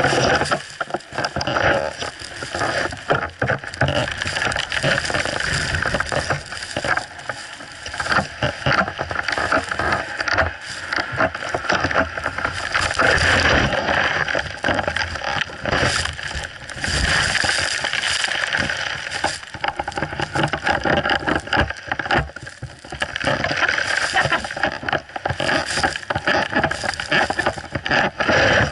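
Snowboard sliding and scraping over icy, hard-packed snow, with wind buffeting the microphone. The hiss swells and eases every few seconds as the board turns.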